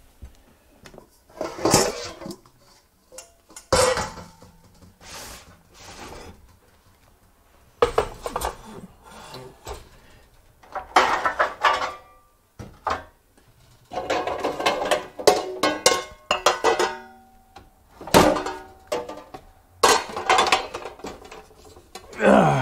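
Metal baking pans and dishes being shifted and stacked on a shelf: irregular clanks, knocks and scrapes, some of them ringing briefly.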